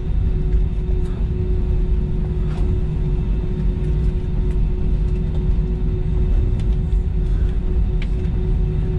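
Airbus A320 cabin noise while taxiing: the engines at idle and the wheels rolling make a steady low rumble with a constant hum over it.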